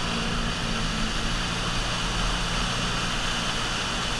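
Personal watercraft (jet ski) engine running steadily at speed, with water rushing and spraying along the hull.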